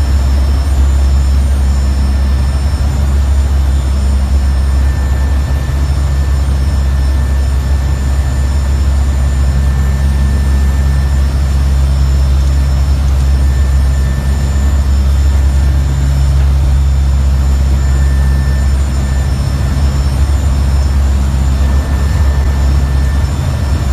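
Steady, loud drone of a NOAA hurricane hunter aircraft's engines and airflow heard inside the cockpit, with a deep constant hum and a few faint steady high tones over a hiss of noise.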